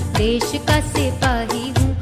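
Bollywood-style song playing: a singer over a steady drum beat.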